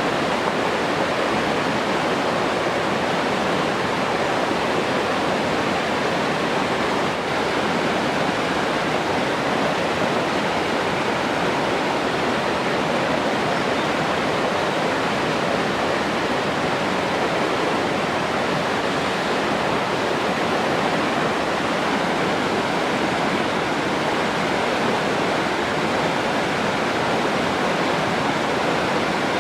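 Steady rushing water, an even, unbroken wash of noise that holds the same level throughout.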